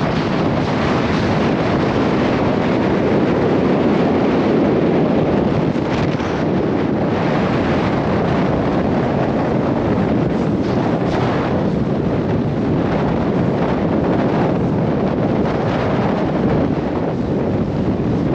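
Wind rushing and buffeting over a POV camera's microphone during a powder run, with the hiss of deep fresh snow under the rider; the rush swells and eases slightly with the turns.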